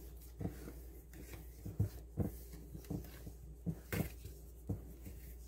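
Dry flour being stirred with a utensil in a glass mixing bowl: soft, irregular knocks of the utensil against the bowl, about eight in a few seconds.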